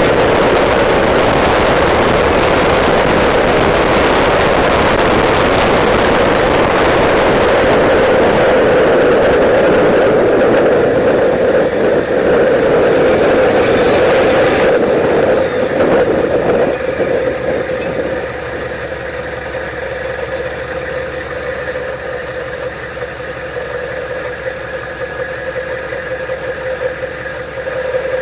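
Straight-piped 6.5-litre Detroit Diesel turbo V8 in a GMT400 K3500 dually truck, running loud under way for about fifteen seconds, with a brief high whistle rising and falling near the end of that stretch. Around sixteen to eighteen seconds in the sound drops to a quieter, steady engine note as the engine comes off load.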